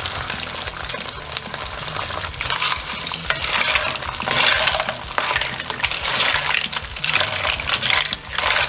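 Mussels and clams sizzling in hot olive oil in a stone-coated pan, stirred with a wooden spoon so the shells click and clatter against each other and the pan. They are being cooked so that the shells open.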